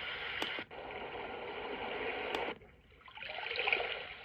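Recorded ocean-wave sound from a PiCTECK portable white noise machine's speaker. A steady wash of surf drops out about two and a half seconds in, then a new wave swells up and fades away near the end.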